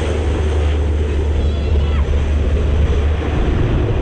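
Amphibious firefighting plane skimming the lake while scooping water: a steady deep engine rumble mixed with the rushing of the spray thrown up by its hull.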